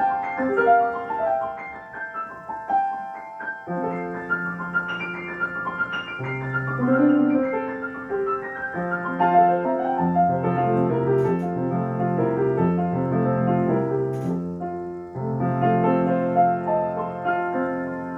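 Solo piano playing classical music: a lighter passage in the middle and upper range, then fuller chords with a low bass line coming in partway through.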